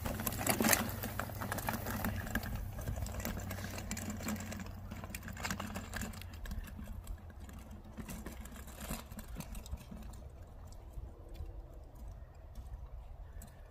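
A folding wagon rattling and clattering over grass as a harnessed dog pulls it away, a busy run of small clicks over a low rumble, loudest near the start and fading as it moves off.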